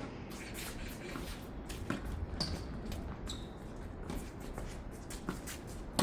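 Tennis players moving about a hard court: shuffling footsteps with two brief high shoe squeaks and a few sharp knocks, the loudest near the end.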